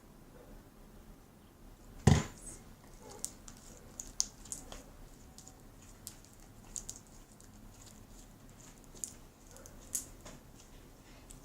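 Hands kneading and stretching freshly made clear slime, giving scattered small sticky clicks and squelches, with one louder thump about two seconds in.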